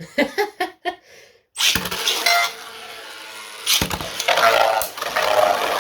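Two 3D-printed Beyblade tops, Brake Shield and Ignis, are launched into a plastic stadium about a second and a half in with a sudden loud rattle. They spin with a steady scraping whir, then clash repeatedly with loud clattering hits over the last two seconds.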